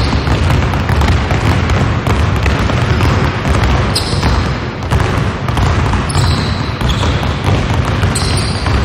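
Many basketballs dribbled on a hardwood gym floor, several players each bouncing two balls while jogging, making a dense, continuous, overlapping patter of bounces that echoes in the hall. A few short high sneaker squeaks come through, about four, six and eight seconds in.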